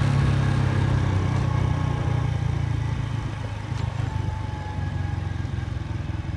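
Motorcycle engine running steadily while riding, a low hum that eases a little after the first couple of seconds.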